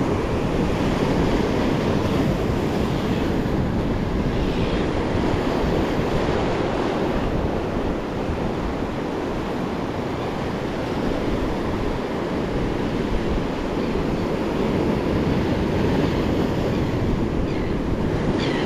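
Surf breaking over a shallow rock reef and washing up a sandy beach: a steady, unbroken wash of waves.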